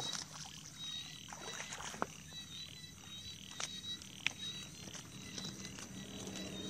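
Night chorus of frogs and insects: a steady high pulsing trill, broken by a few sharp clicks. A low hum grows louder near the end.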